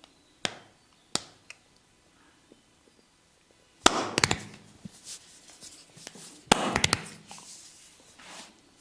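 Sharp slaps and knocks of a vigorous massage on the body: two single cracks in the first second or so, then two quick flurries of rapid strikes about four and six and a half seconds in.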